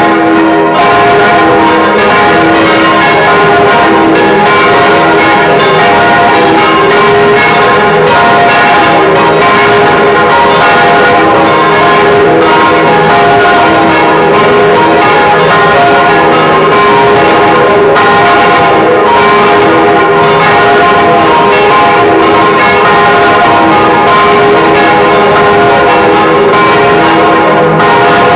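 Church bells cast by the Causard foundry of Colmar, tuned to F, A-flat, B-flat and C, swinging and ringing together heard close up inside the belfry. Very loud, with overlapping strokes and a continuous dense ring that never pauses.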